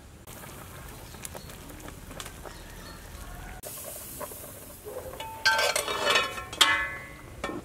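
A low hiss with scattered light clicks, then, about five and a half seconds in, a metal pot lid clanks and rings several times as it is lifted off a steamer pot and handled.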